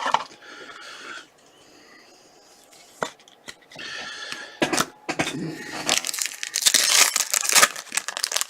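Trading card pack wrapper being torn open and crinkled: a single tap about three seconds in, then a dense run of crinkling and tearing from about halfway through.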